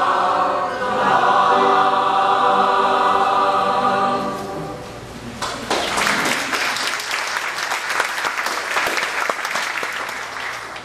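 Mixed choir of men's and women's voices singing, closing on a held chord that ends about four and a half seconds in. About a second later, audience applause breaks out and fades toward the end.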